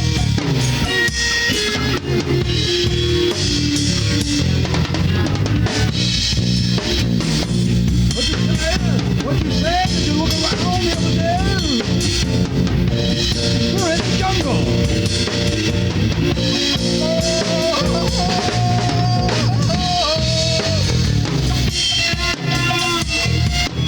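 Garage alternative rock band playing an instrumental passage live, recorded on cassette: drum kit, bass and electric guitars, with a high lead line of bending, sliding notes through the middle stretch.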